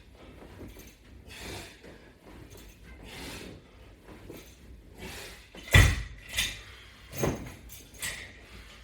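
Heavy rhythmic breathing from a person working through sit-ups and crunches, with four sharp knocks from the exercise equipment starting about two-thirds of the way in; the first knock is the loudest.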